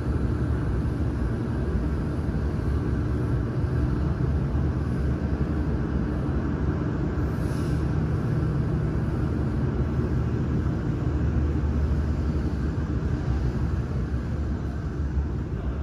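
Steady low background rumble of a large factory hall, with no distinct events.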